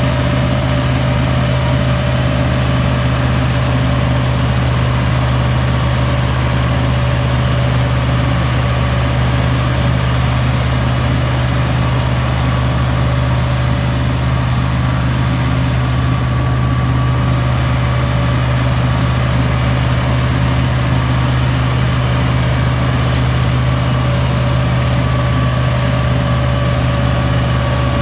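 Massey Ferguson 385's four-cylinder diesel engine running steadily under load while driving a wheat straw chopper through the PTO shaft, a constant low hum with a steady whine above it.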